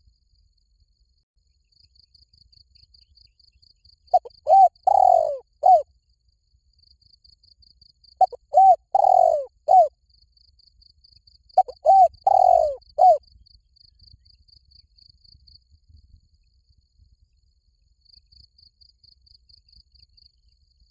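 Spotted dove cooing three times, each call a phrase of four notes: two short coos, one long one, then a short closing coo. Faint insects chirp in a steady, rapid pulse behind it.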